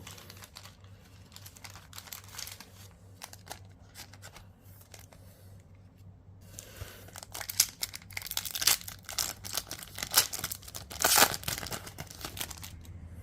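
A foil trading-card booster pack being torn open and its wrapper crinkled, with light shuffling of cards before it; the crinkling grows louder and denser in the second half.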